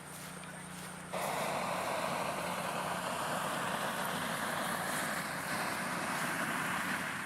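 Propane burner of a remote-control hot air balloon firing in one long blast: a steady hiss that starts about a second in and cuts off near the end.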